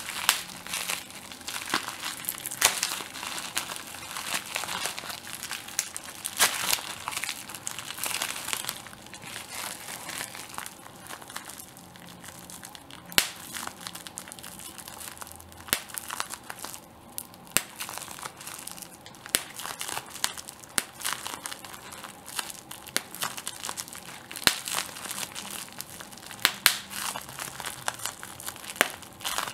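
Plastic bubble wrap being crinkled and popped: continuous crinkling of the sheet broken by irregular sharp pops, several in a row here and there.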